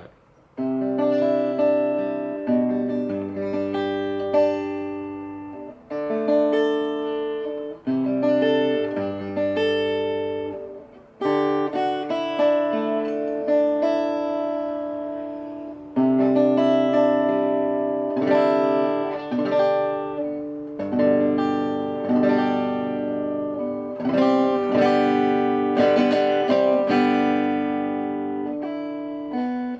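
Egmond archtop acoustic guitar strung with silk-and-steel strings, played: a slow run of picked chords, each left to ring and fade before the next is struck every second or two.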